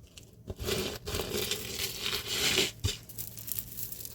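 Crinkling, rustling handling noise, as of plastic or packaging being moved about, lasting about two seconds and then fading.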